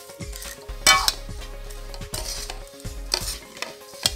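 A steel ladle stirs and scrapes chunks of lemon, ginger and green chilli coated in dry spice mix around a metal kadhai for pickle. There are four scrapes against the pan, the loudest about a second in.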